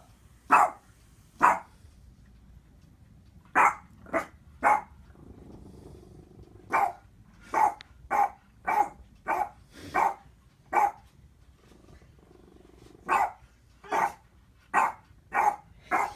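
Boston terrier barking in short, sharp barks, about seventeen of them in irregular bunches with short pauses between: the dog is barking at his own reflection.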